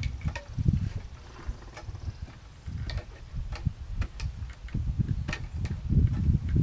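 Hand tools working on a small lawnmower engine: irregular sharp metal clicks and taps, a few a second, over a low rumble that comes and goes.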